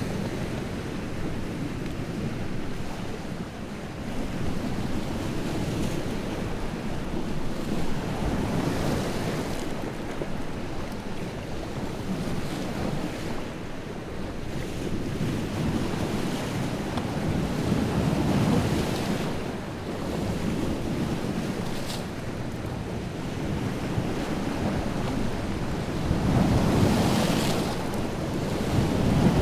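Wind-driven waves breaking and washing on the shore of a large freshwater lake, a steady surf whose swells rise and fall every few seconds, with a louder, brighter break near the end. Wind buffets the microphone in the low end.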